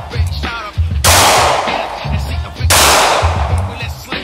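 Two shots from a Glock 19 9mm pistol, about a second and a half apart, each with a long fading ring. Background music with a steady bass beat runs underneath.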